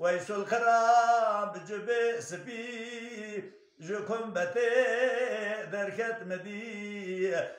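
A man singing a Kurdish dengbêj qeside (religious ode) unaccompanied, in two long phrases with a wavering, ornamented melody and a brief breath about halfway.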